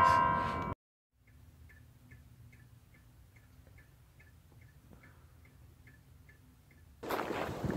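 Faint, even ticking about two and a half times a second inside a car cabin, over a low steady hum. It is preceded by the tail of bell-like music that cuts off abruptly, and wind and surf noise come in near the end.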